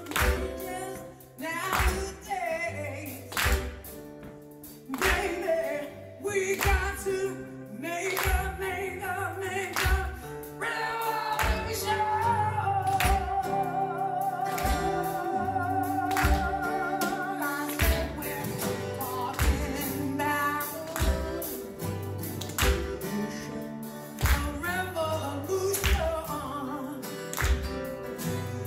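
Live acoustic band playing a song: two acoustic guitars and a drum kit with a steady kick-drum beat, under singing that holds one long wavering note in the middle.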